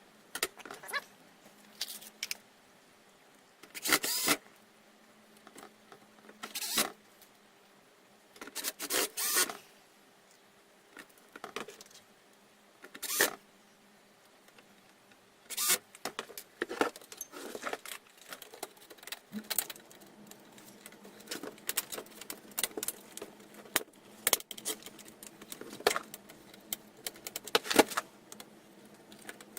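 Metal clinks, clicks and short rattles of an amplifier's chassis parts and screws being handled and fitted during reassembly. They come irregularly throughout, with gaps of a second or two between bursts.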